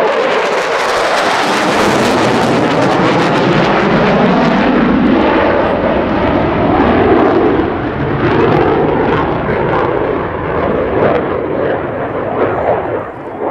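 Two EA-18G Growler jets passing overhead, their twin turbofan engines making a loud jet roar that holds for several seconds and fades toward the end.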